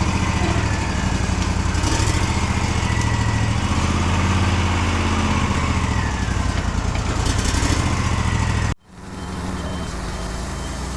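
Woodmizer LT40 sawmill's gas engine running steadily while its hydraulics work, with a whine that rises and falls in pitch. About nine seconds in the sound cuts off suddenly, and a quieter steady running sound follows.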